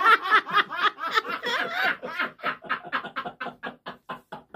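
A man and a woman laughing hard, high-pitched at first, then settling into quick ha-ha pulses, about five a second, that die away near the end.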